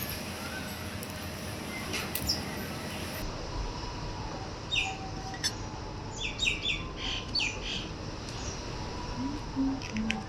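Small birds chirping: short, sharp calls in quick runs of three or four, over a steady background noise.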